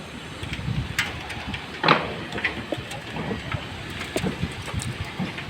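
Construction-site noise: irregular sharp knocks over a steady low rumble, the loudest knock about two seconds in.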